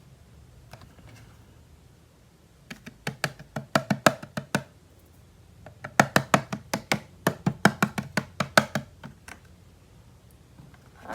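Hard plastic toy pieces clicking and tapping in quick succession, in two runs of several seconds each, about six or seven clicks a second.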